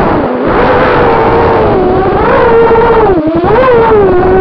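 Rage210RS FPV racing quadcopter's brushless motors and propellers whining loudly, heard through its onboard camera. The pitch swings up and down with the throttle and dips sharply twice, about a third of a second in and just past three seconds. Near the end it settles to a steady, lower whine.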